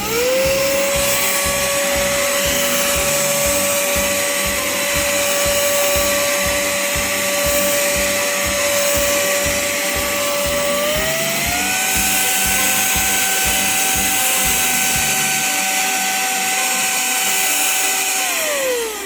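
Battery-powered electric air duster's small high-speed fan motor spinning up to a steady whine with a rush of air, stepping up to a higher speed setting about eleven seconds in, then spinning down near the end.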